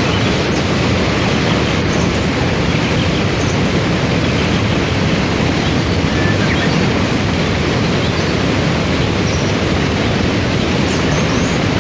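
Waterfall and whitewater rapids rushing: a loud, steady wash of falling and flowing water.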